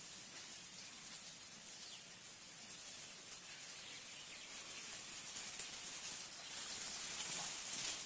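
Faint steady hiss of background noise, growing a little louder near the end.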